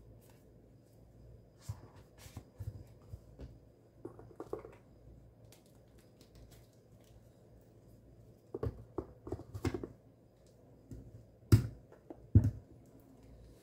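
Small clicks and rustles from handling a wooden watch box, its booklet and the plastic-wrapped watch, ending with two sharp knocks less than a second apart as the box's lid is shut.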